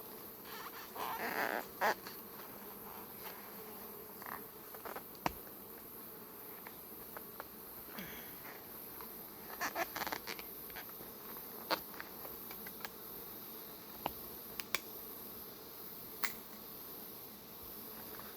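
Honeybees buzzing steadily around the hive, with scattered sharp clicks and short scrapes as a metal hive tool pries at the lid, breaking the wax seal the bees have built around the top.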